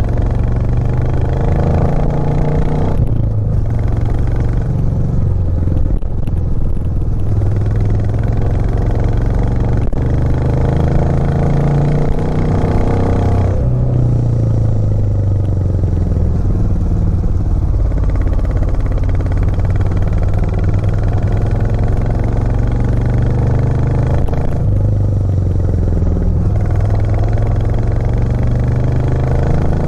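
Royal Enfield Classic 350 Reborn's 349 cc single-cylinder engine running under way on a climbing road. The engine note dips and changes pitch three times: a few seconds in, a little before halfway, and about three-quarters through.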